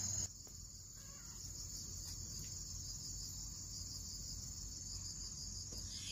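Steady, high-pitched chorus of insects, shrill and unbroken.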